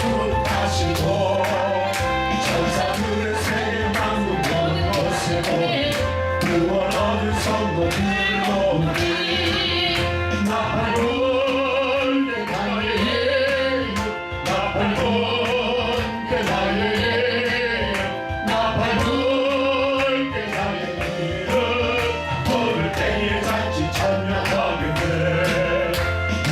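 Worship singing with a backing band: voices carrying a hymn melody over a steady drum beat and heavy bass.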